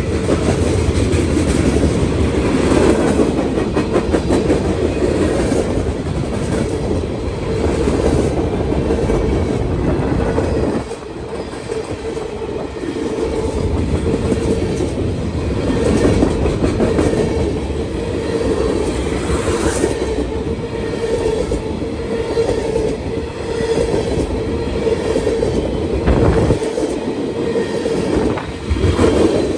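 A train rolling past at close range, its cars giving a steady rumble with wheels clicking over the rails.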